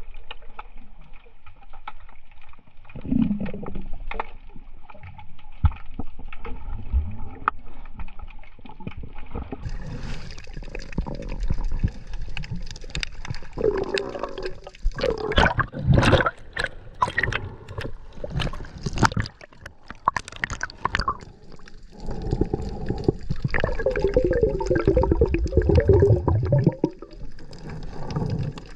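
Water sloshing and gurgling close to the microphone while snorkelling, with a run of sharp splashes in the middle and a long bubbling gurgle near the end.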